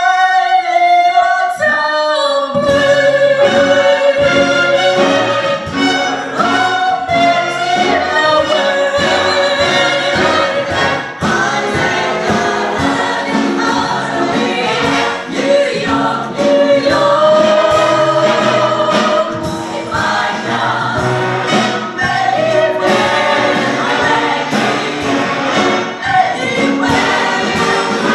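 Live big-band jazz with a women's vocal chorus singing in harmony over trumpets, trombones, saxophones and drums. The voices open with little backing, and the band's bass and drums come in about two and a half seconds in.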